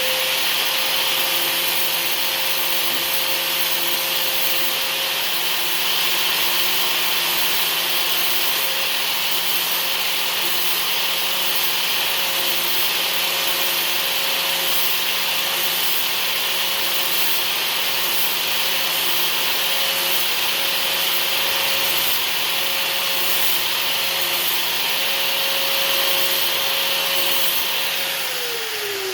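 Harbor Freight right-angle grinder with an 80-grit sanding disc running steadily, sanding the steel shaft of a screwdriver near its tip with a hissing scrape over the motor's whine. The grinder is switched off near the end and its whine falls away as it spins down.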